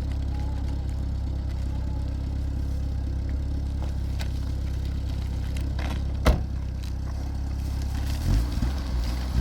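A motor vehicle's engine running steadily with a low hum, with a single sharp knock about six seconds in and a few dull thumps near the end.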